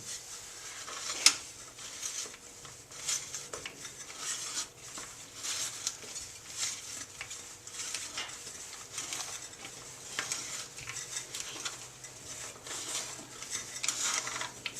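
Lawn mower recoil starter pulley being wound counterclockwise by hand in its housing to tension the recoil spring: irregular clicking and scraping, with one sharp click about a second in.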